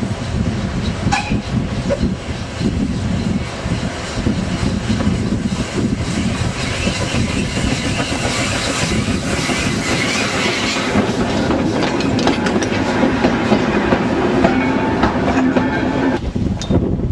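GWR 1366-class pannier tank steam locomotive working past at close range at the head of a goods train, its wagons rolling past behind it. The sound drops away abruptly near the end.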